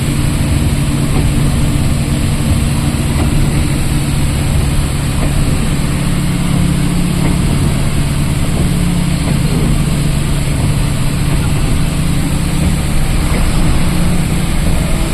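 A motor vehicle's engine running steadily with a loud, even low hum and no change in pace.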